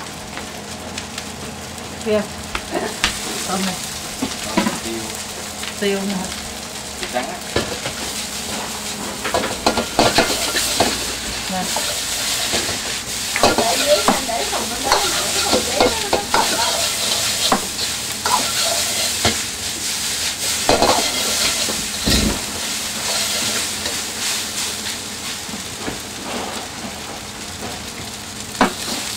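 Food stir-frying in a wok: a steady sizzle with the metal ladle and spatula repeatedly scraping and knocking against the pan. The sizzle grows stronger about ten seconds in.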